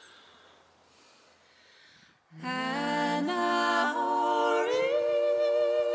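About two seconds of near quiet, then a voice starts humming a slow melody that steps upward in pitch and settles on a long held note.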